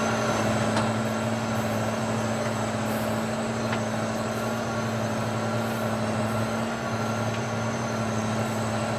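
A 280-horsepower McCormick tractor running steadily under load, driving a FALC Freeland rotary tillage unit through wet soil. It makes a constant machine drone with a steady low hum.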